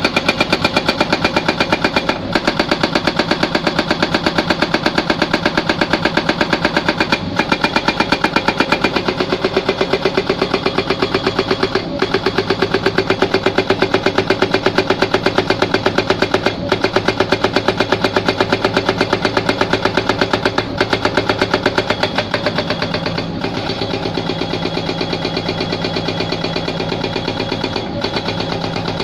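Hydraulic rock breaker on a Hyundai excavator hammering in rapid, even blows, in runs broken by short pauses every few seconds. About 22 seconds in the hammering stops and the excavator's diesel engine carries on running steadily.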